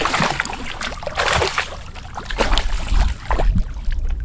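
A hooked smallmouth bass thrashing and splashing at the water's surface beside the boat as it is brought in by hand. There is a big splash at the start and another about a second in, with a low rumble in the second half.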